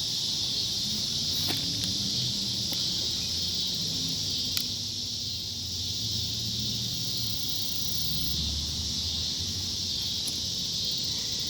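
A steady chorus of insects buzzing without a break, with a faint low rumble underneath and a few faint clicks.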